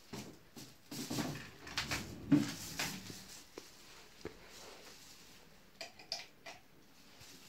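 Handling noise of a 32-inch flat-screen TV being set upright on its table-top stand on a plastic-sheeted table: a cluster of knocks and rustles, the loudest about two seconds in. A few lighter clicks and scuffs follow as cables are handled at the back of the set.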